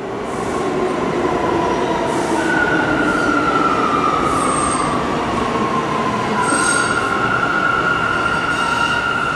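New York City subway train running in an underground station, its steel wheels squealing on the rails over a steady rumble. The squeal comes in long high tones that slide down in pitch, then holds steady from a little past halfway.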